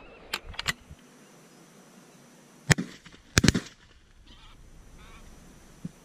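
Shotgun fire at greylag geese: one loud shot about two and a half seconds in, then more shots in quick succession about half a second later. Geese honk around the shots.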